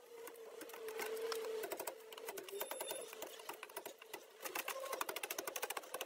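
Honeybees buzzing close by, a wavering hum, over a rapid run of dry clicking and crackling that grows denser about halfway through.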